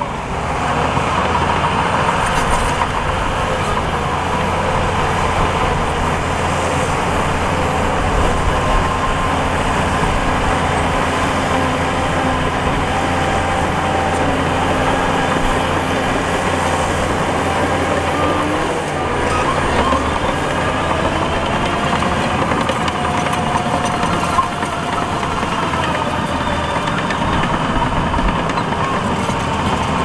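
Diesel engines of heavy earthmoving machinery running steadily, with small shifts in engine pitch.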